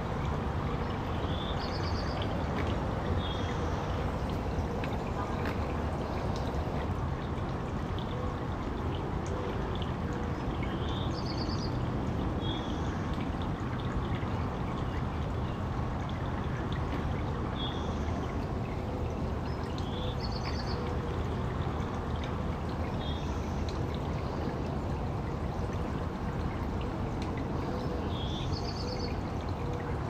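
Backyard water fountain's jets splashing and pattering steadily. Faint short high chirps recur every few seconds.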